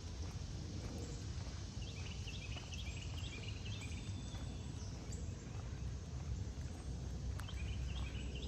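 Neighborhood street ambience: a steady low rumble under faint footsteps, with a bird chirping in quick runs of short notes about two seconds in and again near the end.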